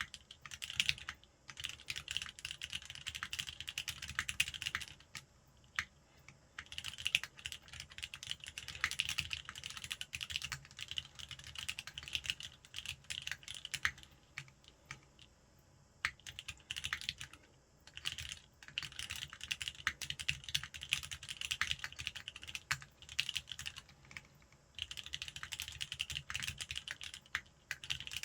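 Custom mechanical keyboard, a sandwich-mount Linworks Whale with an aluminium plate and lubed Cherry MX Black linear switches, being typed on. The keystrokes come in fast continuous runs broken by a few short pauses.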